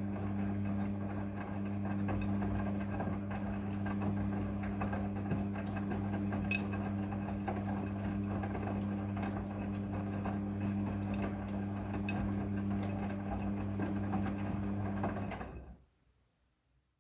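Midea front-loading washing machine running: a steady motor hum with a few light clicks, cutting off near the end.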